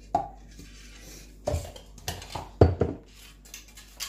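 Kitchenware knocks and clatter while yogurt is added to a plastic blender jar: a handful of separate knocks, the loudest about two and a half seconds in.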